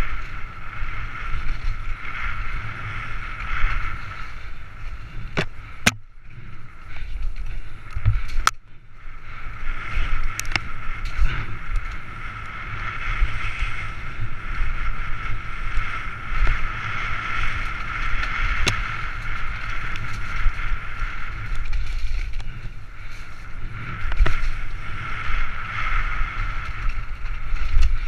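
Mountain bike descending a rough dirt singletrack, heard through a helmet-mounted GoPro: constant wind buffeting and trail rumble with a steady high buzz, broken by a few sharp knocks as the bike hits bumps.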